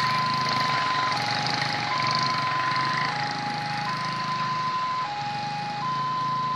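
Railway level-crossing warning alarm sounding a repeating two-tone signal: a higher tone for about a second, then a lower, shorter tone, about every two seconds. Motorcycle engines run underneath as riders cross the tracks.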